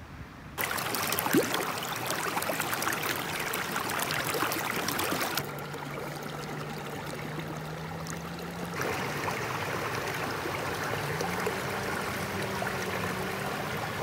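Water of a small creek running and splashing, a steady rushing. It shifts abruptly in level and tone about five and a half seconds in and again about nine seconds in. A faint low hum sits underneath in the second half.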